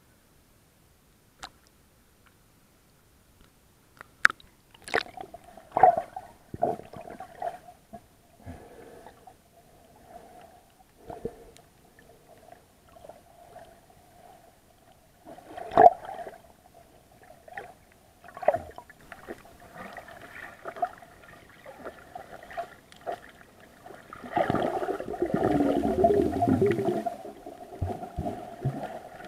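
Muffled underwater sound through an SJ4000 action camera's waterproof case: scattered sharp knocks and bumps against the case over a faint steady hum, with a louder rush of water noise near the end.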